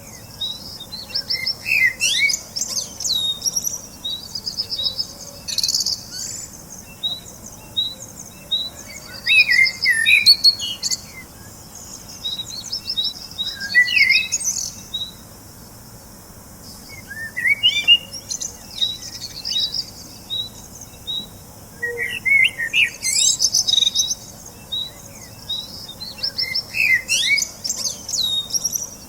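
Several birds chirping and singing: short rising and falling calls and quick trills come in bunches, with brief lulls between them.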